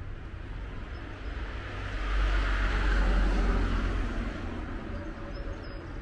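A road vehicle passing on the street: its engine and tyre noise swells about two seconds in and fades away again over the next few seconds.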